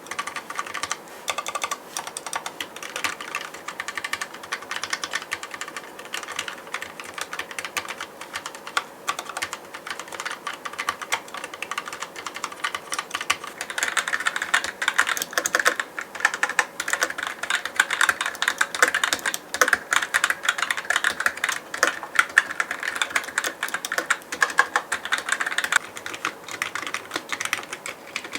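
Continuous fast typing on linear-switch mechanical keyboards, a sound test of the Keychron K1 low-profile keyboard against other linear keyboards. About halfway through, the key clatter turns louder and brighter for a stretch.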